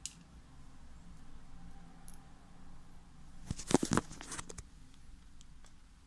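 Handling noise while a keyboard is being screwed back together: a few faint clicks, then a short cluster of sharp clicks and knocks about three and a half seconds in, over a low steady hum.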